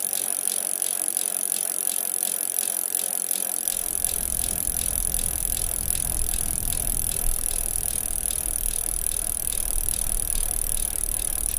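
Bicycle riding with its freewheel ticking in a fast, steady rhythm over a steady high hiss. About four seconds in, a low rumble of the moving bike sets in.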